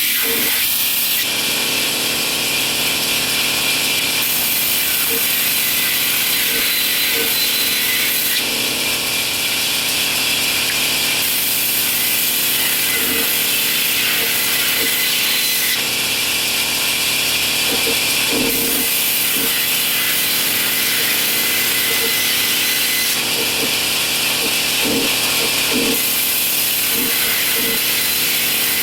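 A power tool working wood, running continuously with a steady, hissing, high-pitched noise that shifts slightly every few seconds.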